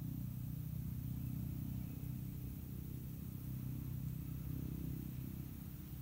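Steady low background rumble with a faint hiss and no clear bird calls.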